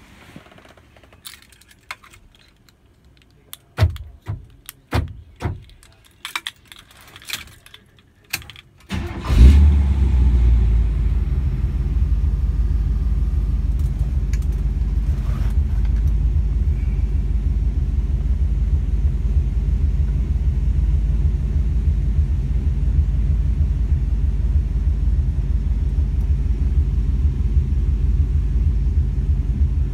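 Car keys jangling and clicking at the steering-column ignition for several seconds, then the truck's GM 350 small-block V8 fires about nine seconds in and settles into a steady idle.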